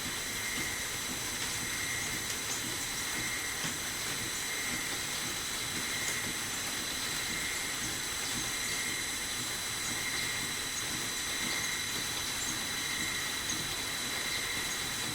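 Small lathe running steadily with a high, even whine over a hiss, with a few faint ticks.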